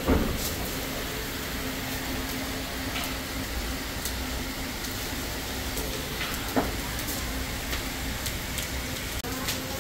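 Steady kitchen background noise with a faint low hum, broken by a few short clicks.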